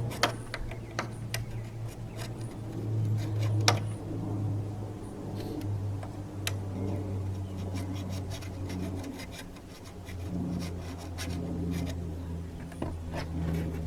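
Hand file rubbing and rasping on metal in irregular strokes, taking rough edges and sharp corners off a lawn mower part, with a few sharp clicks. A steady low hum runs underneath.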